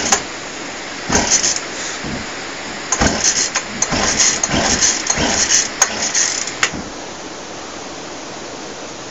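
Small gas engine on a gas-powered blender being pull-started: the recoil starter cord is yanked several times, rope whirring and engine turning over without catching. The pulls come as uneven bursts, one about a second in and a quick run of them from about three to nearly seven seconds.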